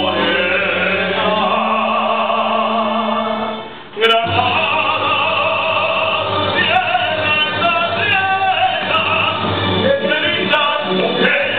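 A man singing in an operatic style over sustained instrumental accompaniment. The sound drops away briefly about four seconds in, then comes back suddenly.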